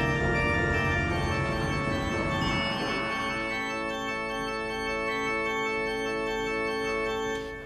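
Background film music of long held chords, with a slow wavering tone in the middle of the chord in the second half, fading out near the end.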